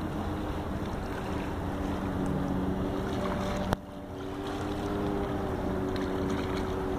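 A motor droning steadily, with a low rumble beneath it. A sharp click comes a little past halfway, after which the drone dips briefly and then builds back.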